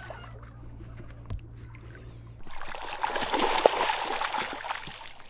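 Splashing water starts suddenly about halfway in and carries on, noisy and choppy, typical of a hooked largemouth bass thrashing at the surface. Before it there is only a steady low hum.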